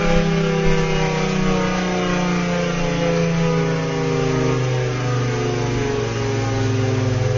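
Tornado siren with an adjustable chopper, running at chopper level 3. It holds one tone that falls slowly and steadily in pitch as it winds down.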